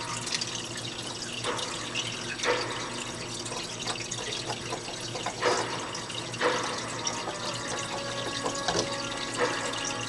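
Aquarium water trickling and splashing steadily over a low steady hum, with about five short, louder splashes spread through it.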